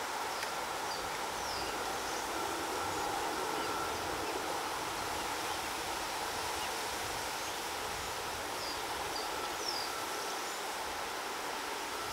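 Steady outdoor background hiss of a wetland, with a few faint, short high chirps from small birds near the start and again toward the end.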